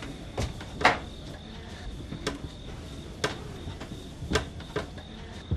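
Bed and quilt noises as a man settles down on a bed under a quilt: about seven soft knocks and creaks at uneven intervals, the loudest about a second in. A faint steady chirring of crickets runs behind them.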